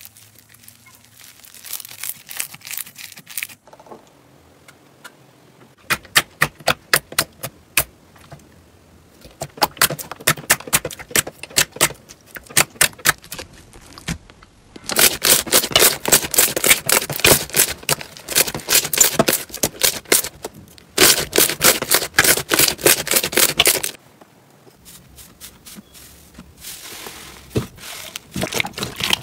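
Hands squeezing, stretching and pressing slime: rapid sticky crackles and pops of air pockets bursting, in runs of several seconds separated by short pauses. At the start the slime is a foam-bead slime; later, glossy stretchy slimes.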